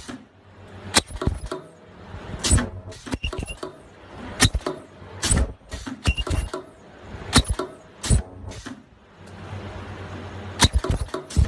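Face mask ear loop welding machine at work: sharp clacks at irregular intervals, roughly one every second or two, over a low steady hum.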